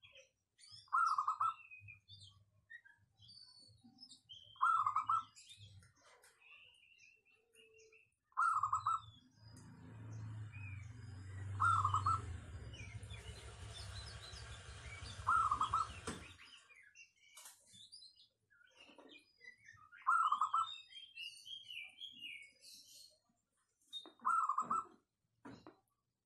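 Caged zebra dove (perkutut) cooing: short clear calls repeated about every three to four seconds, seven in all. Other small birds chirp faintly and high-pitched in the background, and a steady low rumble runs through the middle for about eight seconds.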